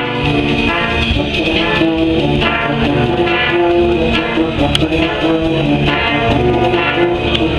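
A full brass band playing: cornets, euphoniums and trombones carry the tune over tubas, with no breaks.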